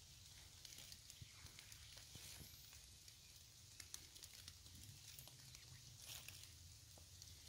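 Near silence, with a few faint scattered clicks and rustles from a muddy object being handled over wet leaf litter.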